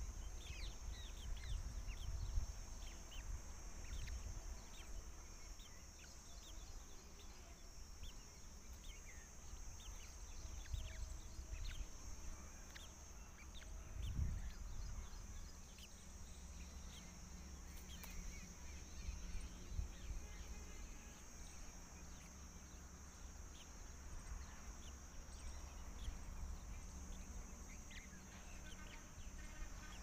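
Small birds chirping: many short, quick, falling chirps scattered throughout, over a steady high hiss and a low wind rumble.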